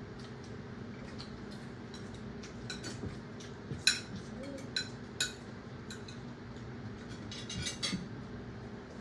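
Cutlery and dishes clinking now and then during a meal, with a few sharper clinks about four and five seconds in, over a low steady hum.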